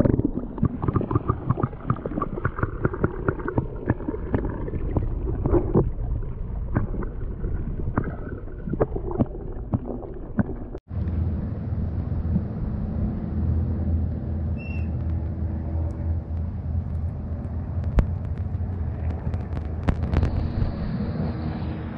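Muffled underwater sound from a submerged camera: dense crackling clicks and gurgling water. After a short dropout about eleven seconds in, a steady low mechanical drone comes through the water.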